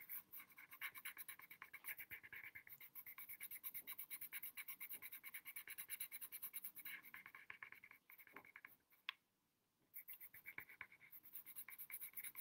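Faint scratching of a coloured pencil on paper in rapid short shading strokes, about five a second, stopping briefly about nine seconds in.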